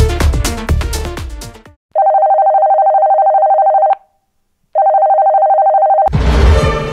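A telephone ringing with a warbling electronic ring, twice, each ring about two seconds long with a short gap between. Electronic dance music with a steady beat fades out just before the first ring and comes back in with a sudden hit near the end.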